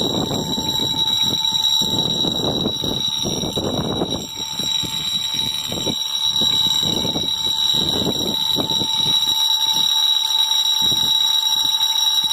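Outdoor electric fire-alarm motor bell ringing continuously, a steady high metallic ring that is super loud, with uneven low rumbling noise underneath.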